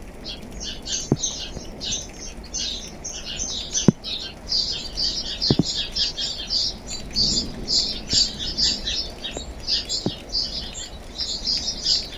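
Many small birds chirping and twittering in a dense, continuous chorus over a soft hiss of rain, with a few single sharp taps.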